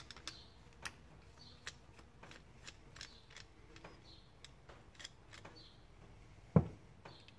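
Light, irregular clicks and taps of small fuel-line parts and hand tools being handled while the fuel line is taken off, with one louder knock about six and a half seconds in.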